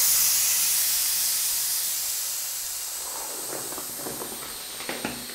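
Air hissing out of a fat-bike inner tube through the opened valve as the tyre deflates, the hiss slowly fading. Light clicks of hands on the tyre near the end.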